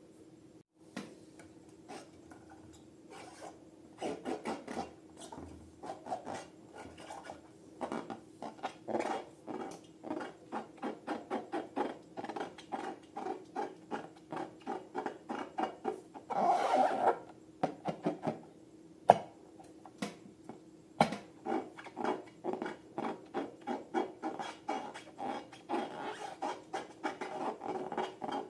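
Slime being worked and mixed, giving short sticky squelches in a quick, even run of about two a second, with one longer rustling burst partway through.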